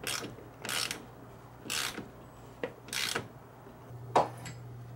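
Ratchet wrench snugging bolts down into nylock nuts: short ratcheting strokes that come further apart and then stop, followed by a single sharp metallic clank about four seconds in.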